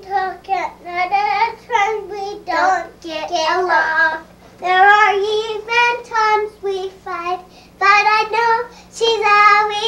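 A young child singing in a high voice, in short phrases with held notes and brief pauses between them.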